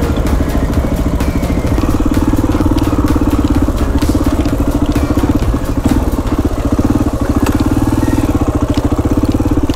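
Dual-sport motorcycle engine running while riding slowly over a rutted dirt track, with scattered knocks and rattles from the rough ground. The engine eases off briefly about six seconds in, then pulls again.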